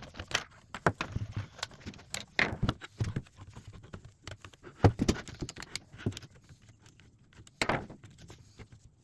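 Irregular clicks, rattles and knocks of clamps and a steam-bent walnut strip being handled and adjusted around a wooden bowl, with a sharper knock about five seconds in.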